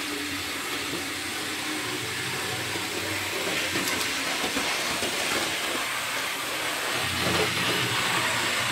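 Steady hiss with a few faint small clicks, the clearest about four seconds in, from pliers turning a tiny motor-retaining screw in a model train's chassis.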